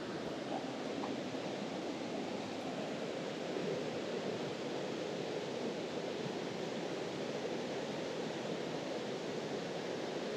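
Mountain stream water rushing steadily over rocks, an unbroken even rush.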